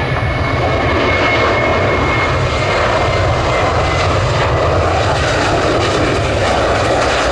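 Jet airliner engines running loud and steady on the runway or in the climb-out, with a thin high whine that fades about halfway through.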